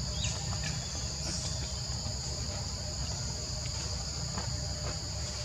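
Steady, high-pitched chorus of forest insects, two even pitches held without a break, over a low steady rumble.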